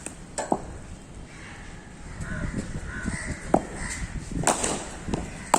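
Crows cawing, with several sharp knocks among the calls.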